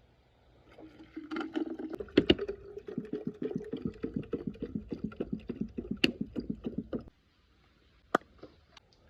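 Water pouring with a rapid glugging rhythm for about six seconds, then cutting off suddenly; a single sharp click follows.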